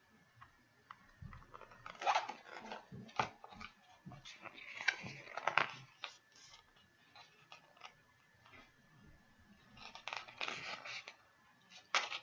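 Paper pages of a picture book being turned and handled: irregular bursts of rustling and crackling, several times over.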